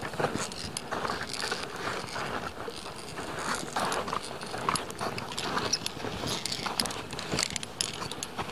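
A climber moving over snow and rock: irregular crunching and scraping steps, with short sharp clinks of metal climbing gear scattered throughout.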